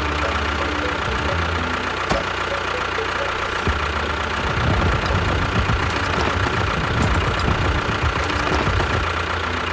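Small motor running steadily with a constant whine, turning rougher and rattling for a few seconds from about halfway through.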